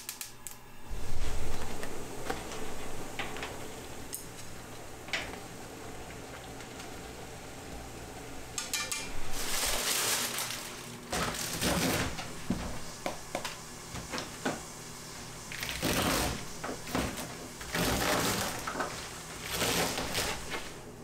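Kitchen food-prep noises on a stainless-steel drainboard: a low thump about a second in, then containers being set down and several loud rustles of plastic packaging, with a knife cutting leafy greens on a plastic cutting board near the end.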